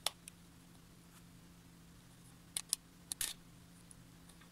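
Needle-nose pliers clicking against the small metal tabs that hold the rear plate on a Tascam 244 fader as the tabs are gripped and bent straight. There are a few sharp light clicks: a pair at the start, another pair about two and a half seconds in, and a short cluster just after three seconds, over a faint low hum.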